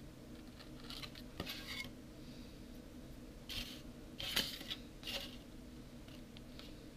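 Polystyrene foam being shaved and handled with a utility-knife blade: short scraping, crackling strokes, a cluster about a second in and another from about three and a half to five seconds in.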